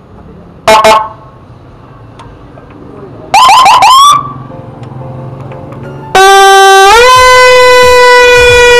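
Whelen electronic vehicle siren being tested through its speaker: a short blast about a second in, a quick burst of rising yelps around three seconds in, then from about six seconds a loud, steady horn tone that steps up in pitch once and holds.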